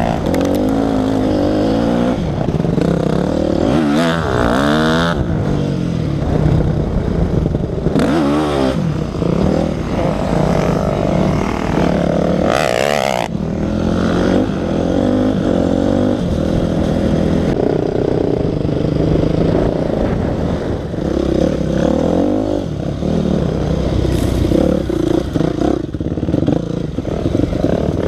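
Yamaha enduro motorcycle's engine heard from on board, riding off-road under load and revving up and down, with several quick rising and falling pitch sweeps about four and eight seconds in.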